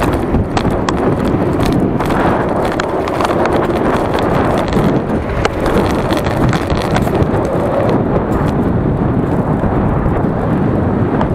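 Steady wind buffeting and road rumble picked up by an action camera mounted on a moving bicycle, with scattered clicks and rattles from the bike and mount over the road surface.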